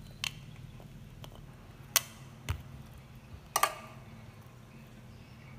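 A metal spoon clinking against a ceramic bowl and the rim of an aluminium pot while garlic cloves are spooned onto a chicken: a few sharp clinks, one briefly ringing, and a duller knock, spread over the first four seconds.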